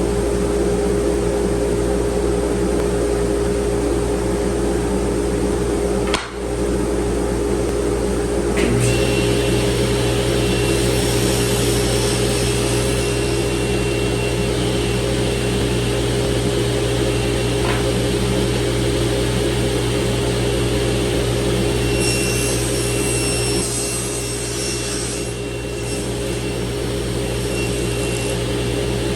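Table saw motor and blade running steadily through a crosscut, a constant mechanical whine and hum. There is a brief drop in level about six seconds in, and a second steady tone joins near nine seconds.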